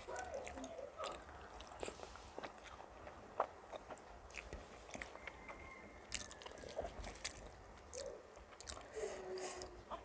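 Close-miked chewing and biting of a meal of rice with fried vegetables and curry: irregular wet mouth clicks and smacks with occasional crunches.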